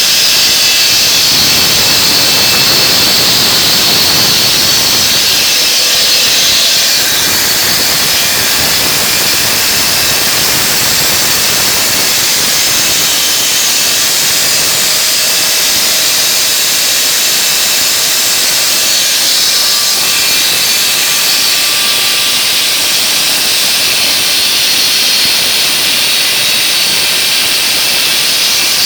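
Homemade semi-automatic stone-cutting saw running through stone with its water feed on: a loud, steady, high hissing grind.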